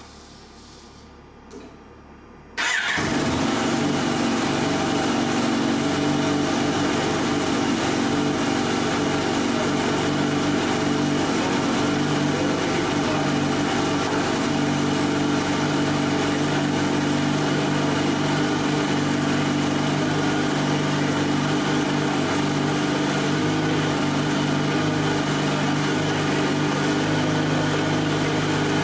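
Kawasaki Ninja H2 Carbon's supercharged 998 cc inline-four starting for the first time about two and a half seconds in, catching at once, then idling steadily.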